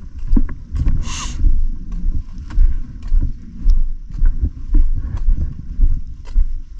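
Footsteps and handling rumble on a hand-held camera's microphone while walking, a low thud about twice a second, with a brief hiss about a second in.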